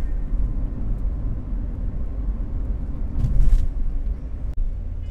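Vehicle driving along a road: a steady low rumble of engine and road noise, with a short hiss about three seconds in.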